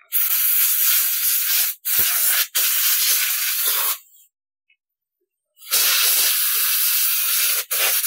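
Aerosol spray can spraying in several long hissing bursts, with a pause of about a second and a half midway.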